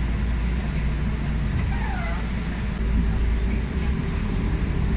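Engine and drivetrain of an MAN ND363F (A95) city bus with a ZF EcoLife automatic gearbox, heard from inside the passenger cabin as a steady low drone. About three seconds in the drone grows louder and a steady whine joins it.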